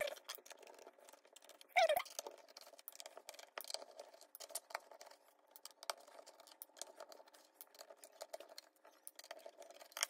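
Faint, irregular small clicks and scratches of a pentalobe screwdriver turning out the screws of a MacBook Air's aluminium bottom case, with one louder clink about two seconds in.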